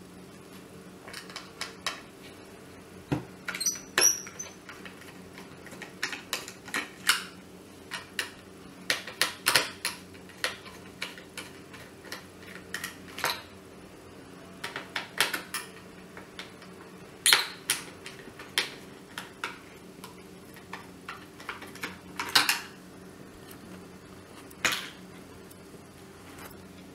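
Irregular small clicks, taps and scrapes of a screwdriver working screws out of a dry iron's plastic top cover, with the plastic parts knocking as they are handled.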